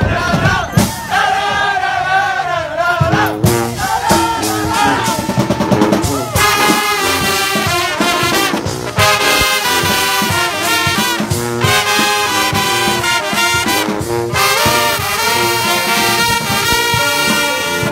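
Street brass band led by trumpets, playing loud; after about three seconds of looser, wavering sounds, the horns settle into a full, steady tune.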